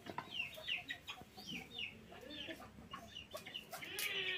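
Chickens clucking, with many short, high calls that fall in pitch, several a second, and a few light clicks among them.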